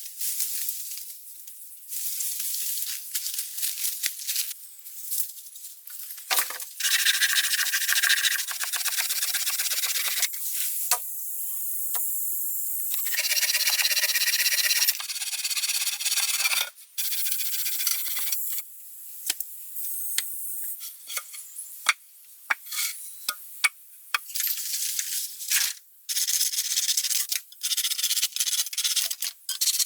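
Rough scraping and rubbing in uneven stretches, broken by sharp stops and short clicks.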